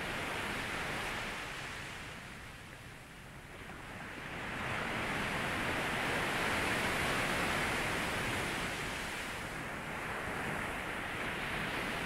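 Ocean surf breaking and washing up a sandy beach: the wash eases off about three seconds in, then a wave breaks and rushes up the sand from about five seconds in.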